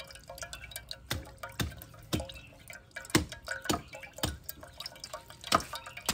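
Coconut water dripping from a hole in a husked coconut into a metal pot of liquid, single drops plopping about every half second.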